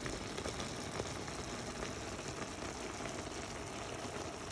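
Sukiyaki broth simmering in a pan, a low steady hiss of bubbling with a couple of faint pops.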